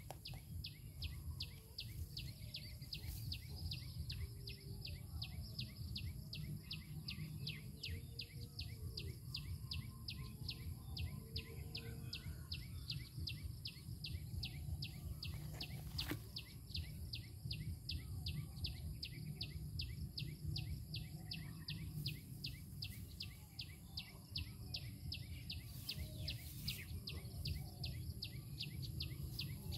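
Insects chirping in a steady, even pulse of about four chirps a second, with faint scattered bird calls and a low rumbling noise underneath.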